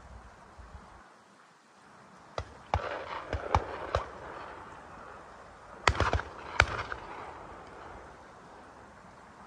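Shotguns firing: a quick run of about five shots between two and four seconds in, then about three more around six seconds in, each trailing a short echo.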